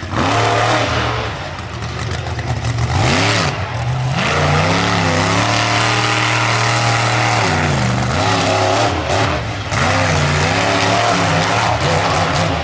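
Monster truck engine revving hard, its pitch climbing and falling several times as the throttle is worked, held high for a few seconds in the middle and dipping briefly about eight seconds in before climbing again.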